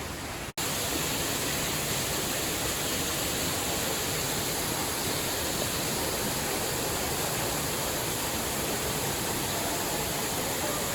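Steady rushing of a waterfall's falling water, an even hiss and roar; the sound cuts out for an instant about half a second in and comes back slightly louder.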